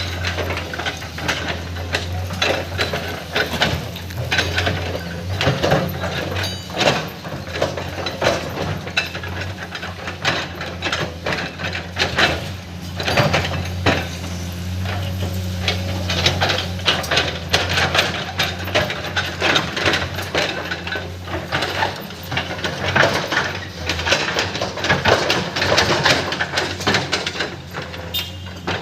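Komatsu PC210 hydraulic excavator working: its diesel engine runs steadily beneath a constant stream of irregular clanks and knocks.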